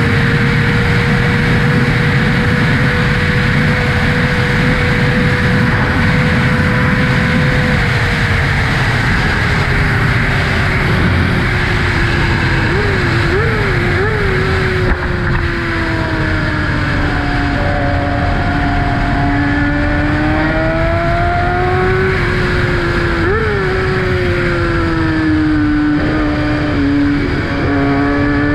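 2012 Kawasaki ZX-6R inline-four with an M4 Tech 1 exhaust, heard at riding speed under heavy wind rush. The engine note holds steady, drops about eight seconds in as the bike slows, and rises and falls again later, with a few brief throttle blips along the way.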